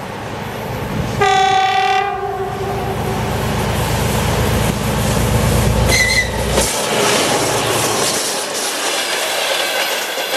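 2TE10M diesel locomotive sounding its horn once for about a second, then passing with the heavy rumble of its 10D100 opposed-piston two-stroke diesel engines, with a brief high tone about six seconds in. The engine rumble drops away about seven seconds in and the freight wagons roll past, their wheels clattering over the rail joints.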